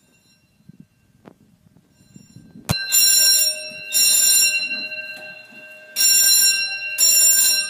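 Fire alarm bell ringing loudly, starting suddenly almost three seconds in, its clanging swelling and fading in surges.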